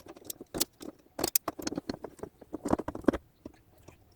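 Small metal parts clicking and tapping as they are handled: the fuel filter and fuel tap being positioned against each other. The taps come in quick irregular clusters, then stop about three seconds in.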